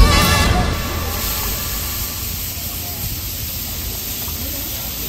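Thin beef steaks and eggs sizzling on a flat-top griddle, a steady hiss; the tail of background music dies away in the first second.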